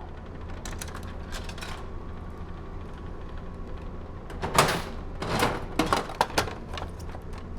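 A run of sharp clicks and knocks of small hard objects being handled, bunched about four to six seconds in, over the steady low hum of the ferry's machinery.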